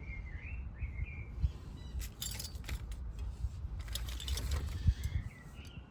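Pans and bowls of a Trangia T27 camping cook set clinking and rattling as they are nested back together, in small clusters of knocks about two seconds and about four seconds in.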